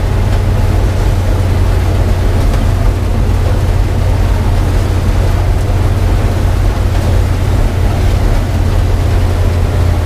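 New Holland TR70 combine's gasoline V8 engine and threshing rotors running steadily while harvesting corn, heard from inside the cab as a constant low drone.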